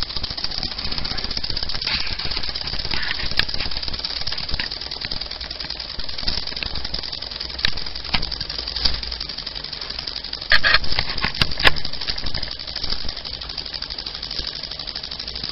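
Small model steam engine, fed from a glass boiler heated by a spirit burner, running fast and driving its spoked flywheel: a steady hiss with a handful of sharp clicks in the second half.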